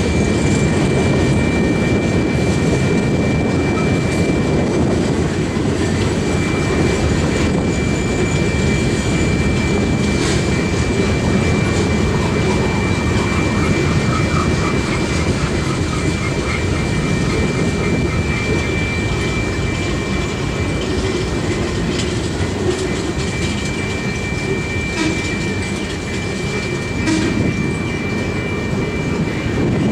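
Freight train of boxcars and refrigerator cars rolling past at steady speed: a continuous rumble of cars and wheels on the rails, with a thin, steady high whine running through most of it.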